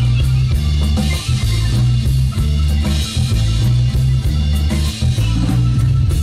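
Live instrumental band playing: nylon-string acoustic guitar, electric bass, drum kit and keyboard, with a prominent bass line under steady drum hits.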